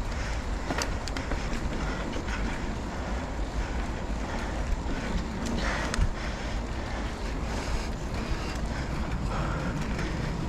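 Motorcycle under way: wind buffeting the microphone over the steady rumble of the engine and road noise.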